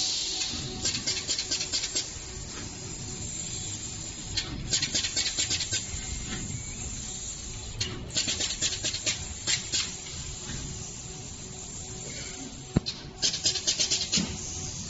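Neoden K1830 pick-and-place machine running: bursts of rapid mechanical clicking, four of them a few seconds apart, over a steady low hum.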